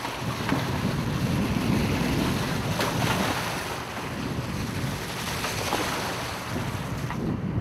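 Sea wash and wind on the open deck of a sportfishing boat, with wind buffeting the microphone, and a few faint knocks.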